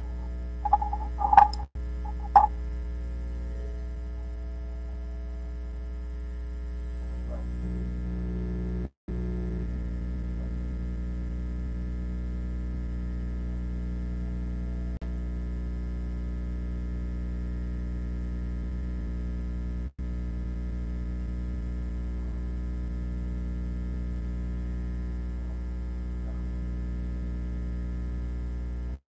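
Steady electrical mains hum, with a few short high-pitched chirps in the first two or three seconds. The hum briefly cuts out twice.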